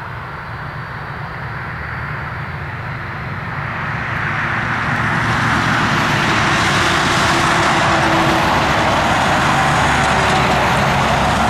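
Airbus A320's twin IAE V2500 turbofans running as it lines up for takeoff, a broad jet noise that swells and turns more hissing about four to six seconds in as thrust comes up, then holds steady.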